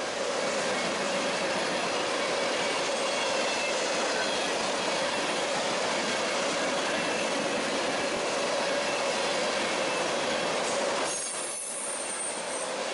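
Railroad cars rolling past on the main line: a steady rush of steel wheels on rail, with faint high squealing tones from the wheels. The sound dips briefly about eleven seconds in, then picks up again.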